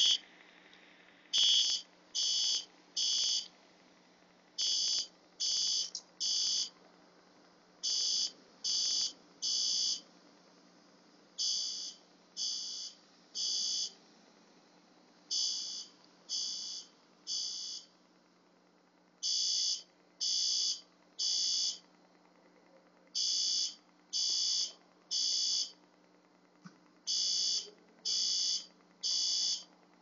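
Fire alarm sounding its three-beeps-then-pause evacuation signal (temporal-three pattern): high-pitched beeps in groups of three, a group about every four seconds, repeating steadily. It is a false alarm, set off by the sprinkler line's water-flow switch when water rushed back into the drained line.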